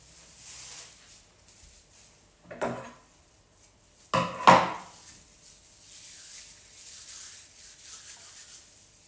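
Objects being handled on a tabletop: soft rustling throughout, a knock a little under three seconds in, and a louder double clatter about four seconds in.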